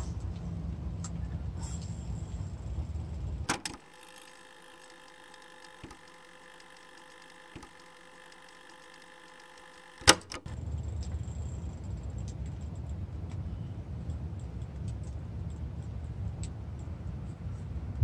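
Wind buffeting the microphone as a steady low rumble, which drops out abruptly for several seconds in the middle, between two sharp clicks.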